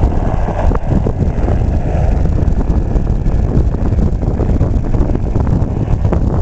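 Helicopter rotor and engine running steadily, mixed with wind buffeting the microphone.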